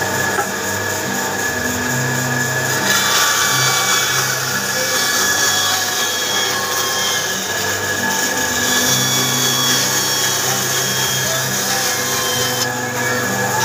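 An electric power tool running steadily and working wood, with a constant high whine under a rough cutting noise that grows harsher about three seconds in and eases near the end.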